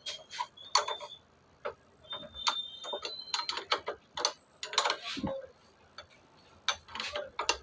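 Metal tools tightening nuts on a motorcycle's front disc brake assembly: irregular sharp metallic clicks and clinks, a few ringing briefly.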